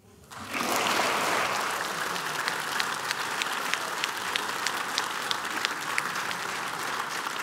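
Audience applauding, breaking out suddenly about half a second in and keeping up steady clapping, with a few louder single claps standing out.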